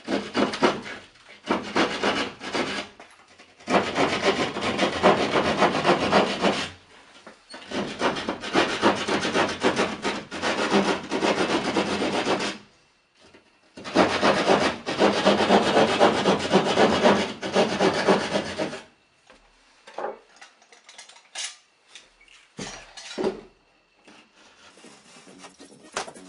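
Drywall being sawn by hand to cut a square hole, in four long spells of rapid back-and-forth strokes, followed near the end by a few short scrapes and knocks.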